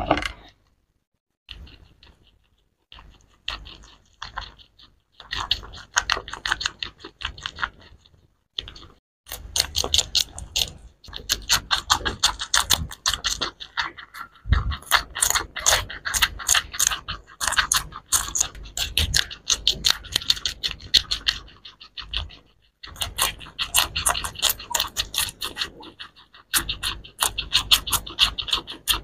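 Guinea pigs chewing crunchy pieces of green bell pepper and strawberry, a rapid run of crisp crunching clicks several a second. The chewing comes in short spells at first and runs almost without a break from about nine seconds in, with brief pauses.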